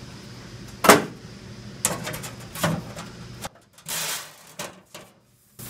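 A thin aluminum sheet panel is handled and set into place. There is a sharp knock about a second in, then several lighter knocks and a brief scraping slide.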